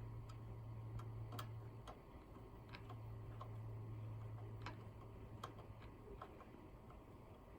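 Light irregular clicks and taps of a screwdriver and screws as a power supply unit is screwed into the back of a PC case, about one or two clicks a second. A steady low hum runs underneath, briefly dropping out about two seconds in.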